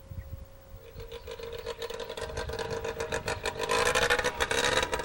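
The Ikenga 530Z autogiro's Suzuki 95 hp water-cooled engine running on the ground, with a fast, even firing pulse. It comes in about a second in and grows louder, rising slightly in pitch near the end.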